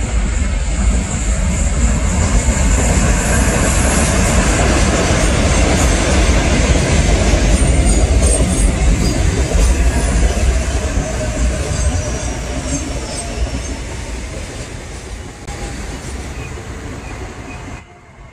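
Seoul Line 4 electric subway train passing on an elevated viaduct: a loud, steady rumble of wheels on rails. It builds over the first few seconds, holds at its loudest through the middle, eases off after about twelve seconds and drops away abruptly near the end.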